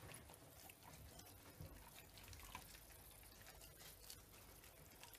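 Faint wet licking and chewing of a German Shepherd working at a raw steak: a scatter of small smacking clicks.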